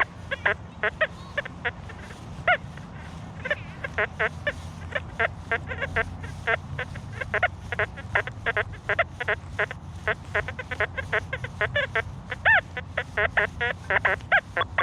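XP Deus II metal detector giving a rapid string of short beeps and chirps of varying pitch, several a second, as the coil sweeps over ground full of iron.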